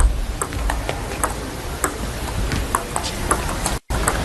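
Table tennis ball clicking back and forth off the paddles and the table in a rally, a sharp tick every half second or so.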